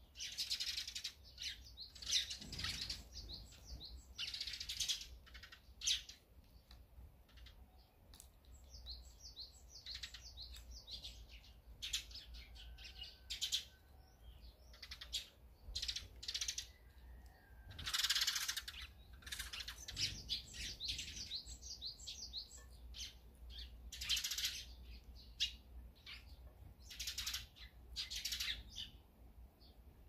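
Many short, rapid chirps from small songbirds, sparrows and tits, feeding at seed feeders, with several loud bursts of wing flapping as birds fly in and out.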